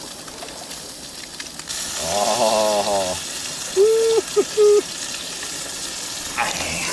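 A fish fillet frying in hot oil in a pan, a steady sizzle that jumps louder about two seconds in. Short hummed or voiced sounds break in over it.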